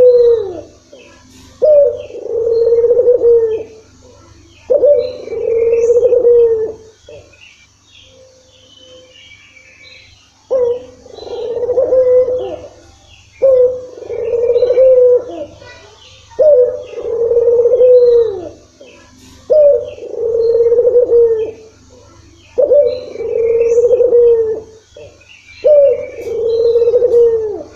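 Puter dove (ringneck or Barbary dove) cooing over and over: about nine low coos, each a sharp note sliding into a held, wavering coo of a second or two, spaced about three seconds apart, with one longer pause before the middle. Faint high chirps from other small birds sound in between.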